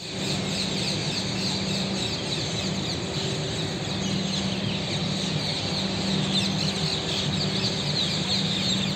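A flock of parrots calling together in a tree: a dense, steady chatter of many overlapping short, high squawks, over a steady low hum.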